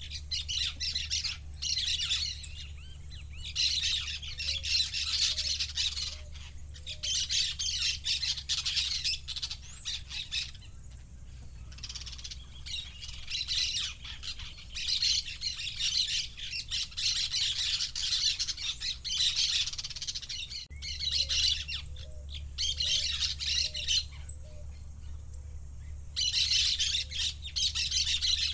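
A forest bird chorus: many birds chirping and squawking in overlapping bursts, with a short run of lower calls twice, over a steady low hum.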